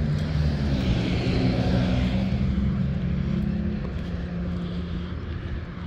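Road traffic, led by a vehicle's low, steady engine drone that slowly fades toward the end.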